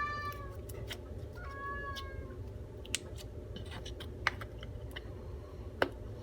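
A pet cat meowing twice near the start: two short, high calls that rise and fall in pitch. Three sharp clicks follow, spread out over the next few seconds, over a steady low background hum.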